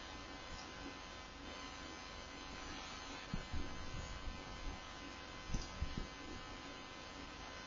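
Steady electrical hum and hiss of the recording background, with a few brief low thumps near the middle.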